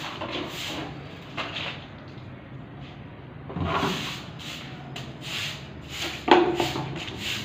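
Short hand broom sweeping a brick floor: irregular swishing strokes, the loudest about six seconds in.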